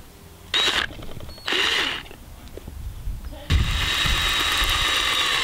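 Cordless drill running in two short bursts, then a longer steady run starting about three and a half seconds in, its bit boring into the rubber sole of a trainer.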